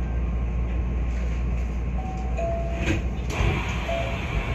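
Hankyu 1300 series electric train standing at a station platform with a steady low hum, a few short high tones about two to four seconds in, and a couple of sharp clicks around three seconds.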